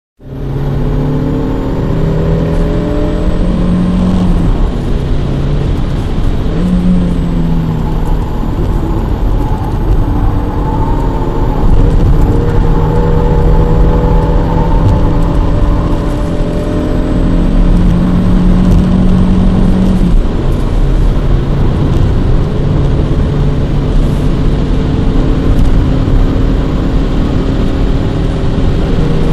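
Škoda Rapid 1.2 TSI's turbocharged four-cylinder petrol engine heard from inside the cabin while driven hard, its pitch climbing and dropping in steps as it revs through the gears, over steady low road and tyre rumble.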